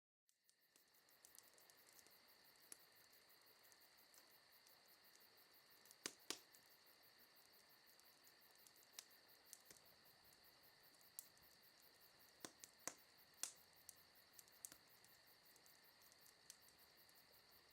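Faint, steady, high-pitched chirring ambience that fades in from silence, with scattered sharp clicks.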